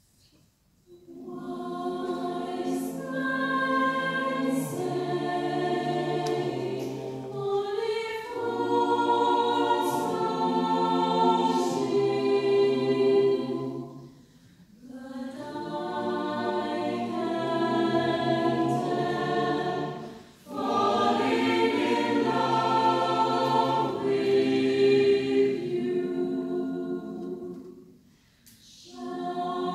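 Mixed choir of women's and men's voices singing unaccompanied. The choir comes in about a second in and sings long sustained phrases, with three short breaks between them.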